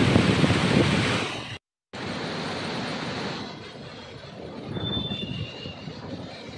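Floodwater rushing through the open gates of a river barrage: a steady, loud rushing of water. The sound breaks off for a moment about one and a half seconds in, then returns and grows softer from about three and a half seconds.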